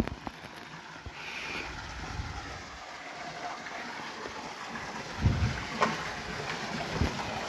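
Water spilling and splashing through leaking canal lock gates in a steady rush, with a few low thumps about five and seven seconds in.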